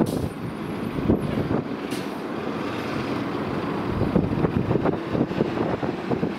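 Low, fluttering rumble of a four-engine jetliner's engines as it climbs away.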